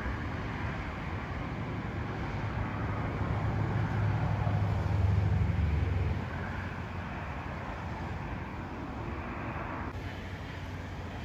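A car going by: a steady rumble with tyre hiss, rising to its loudest about four to six seconds in, then easing off.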